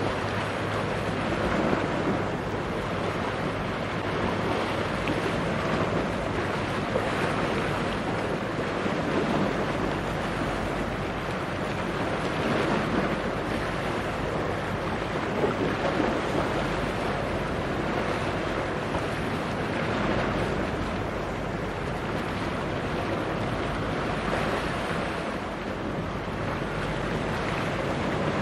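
Sea waves washing and wind on the microphone: a steady rushing noise that swells and eases every few seconds, with a faint low steady hum underneath.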